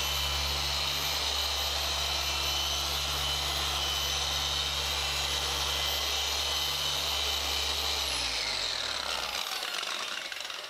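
Rupes dual-action machine polisher running steadily on car paintwork. About eight seconds in it is switched off, and the motor winds down with a falling pitch.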